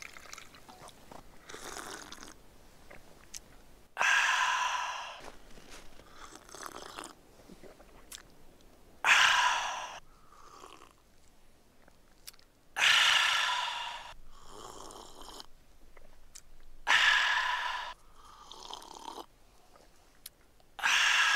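A man slurping hot coffee from a thermos cup in loud sips, about one every four seconds, with fainter sounds between them.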